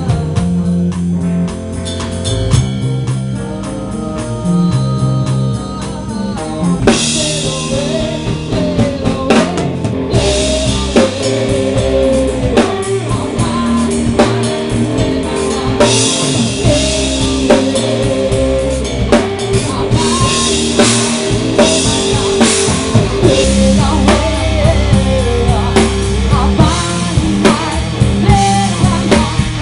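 Rock band playing live in a rehearsal room, picked up by a single camera's built-in microphone: guitar alone at first, then drums and cymbals come in about seven seconds in. A woman sings over the full band from about eleven seconds on.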